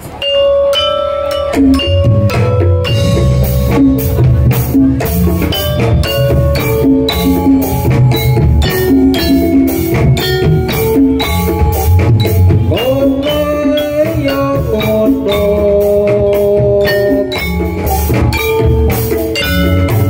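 Live Javanese gamelan-style music: metallophones striking a quick, repeating melody over dense drumming.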